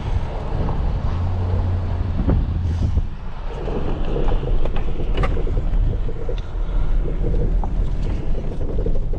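Service truck's engine and road rumble heard from inside its cab while driving over a dirt lot, with a few short rattles and knocks.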